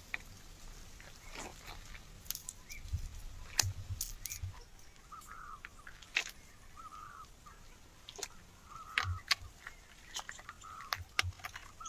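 Irregular sharp clicks and snaps, with several short calls from a bird scattered through the second half.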